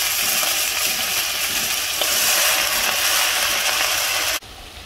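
Freshly washed ponnanganni greens sizzling in hot oil with sautéed shallots in a clay pot, the water on the leaves making a steady loud sizzle. Near the end it drops suddenly to a much quieter sizzle.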